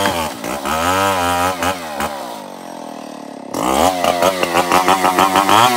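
Stihl 070 two-stroke chainsaw cutting a log, its engine pitch sagging and recovering under load. About two seconds in it falls back toward idle, and a second later it is revved hard in quick repeated blips of the throttle.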